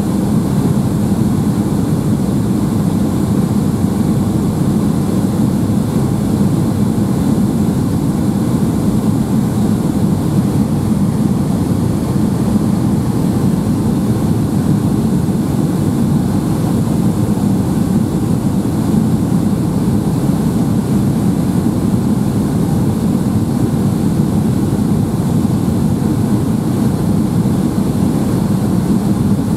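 Steady cabin noise inside a Boeing 757-200 descending to land: a low, even rumble of the jet engines and the air rushing past the fuselage, unchanging throughout.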